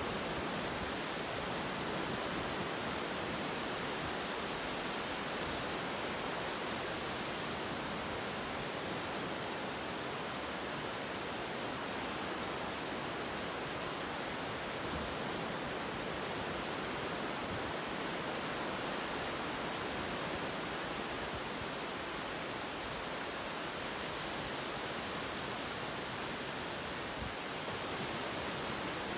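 Steady, even rushing noise with no breaks or swells, like running water or hiss.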